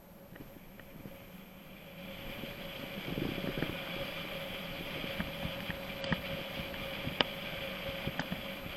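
Mountain bike rolling over a rough track: steady tyre and wind noise that grows louder about two seconds in, with sharp rattles and knocks from the bike.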